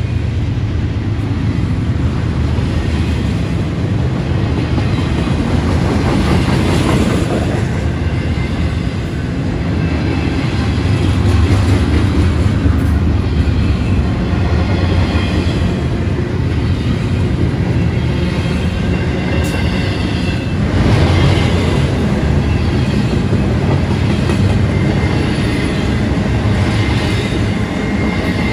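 Freight train cars rolling past at speed: a loud, steady rumble of steel wheels on the rails, with faint high tones from the wheels above it.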